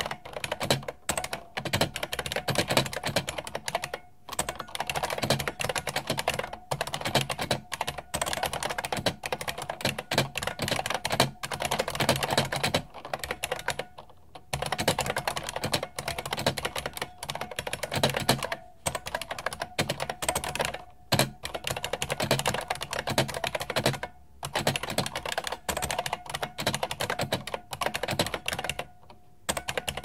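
Continuous fast touch typing on a 1993 IBM Model M buckling-spring keyboard: a dense, clicky clatter of keystrokes, stopping briefly a few times.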